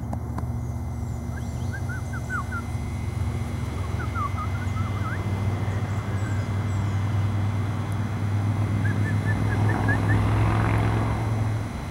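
Small birds chirping in three short runs of quick notes over a steady low engine drone that grows louder in the second half.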